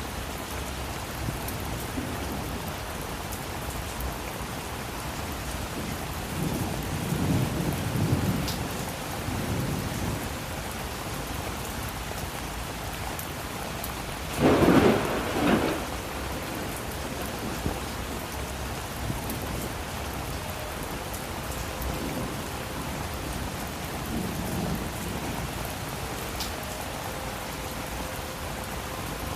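Steady rain falling with low rolls of thunder, and a louder, sharper thunderclap in two quick peaks about halfway through.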